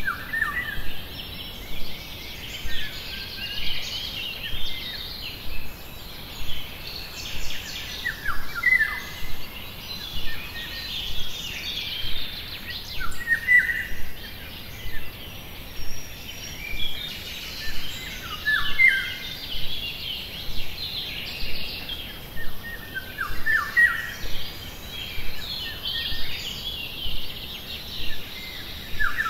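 Songbirds singing and chirping together, with one short lower phrase coming back about every five seconds.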